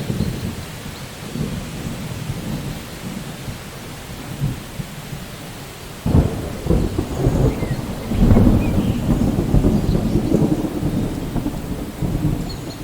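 Steady rain falling, with a rumble of thunder breaking in about halfway through, loudest a couple of seconds later and rolling on to the end.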